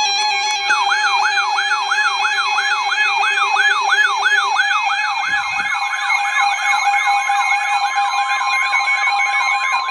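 Weather alert radio's electronic alarm: a siren-like whoop rising in pitch over and over, about three times a second, over steady electronic tones. It signals an incoming National Weather Service warning.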